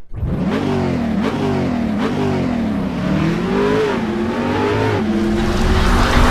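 A car engine revved in quick blips, then one longer rev, settling to a steady note about five seconds in.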